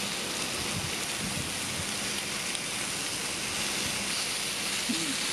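Bacon-wrapped dango skewers sizzling in a steel pan over a gas cartridge burner: a steady, even hiss.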